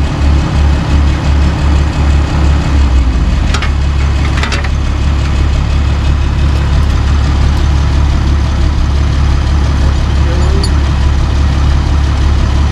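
A heavy engine idling with a loud low note, pulsing about three times a second for the first few seconds and then running steady. Two short clicks about three and a half and four and a half seconds in.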